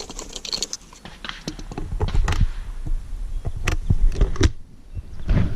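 Metallic clicks and clacks of a shotgun being handled as its shells are taken out, a series of sharp knocks with a few louder ones in the second half, over a low rumble.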